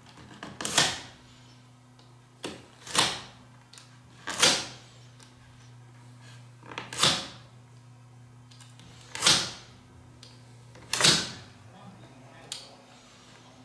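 Craft knife slicing through leather glued across the backs of pipe organ keys, parting the leather between one key and the next. Six short, sharp cuts, about two seconds apart.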